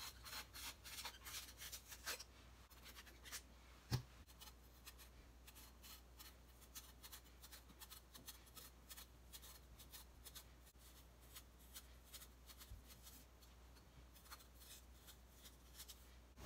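Faint scratching and scraping of a blade peeling a persimmon, densest in the first two seconds and then sparse, with a single knock about four seconds in.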